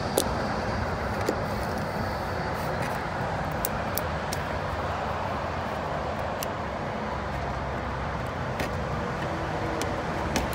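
Steady background noise of road traffic, with a few light clicks scattered through it.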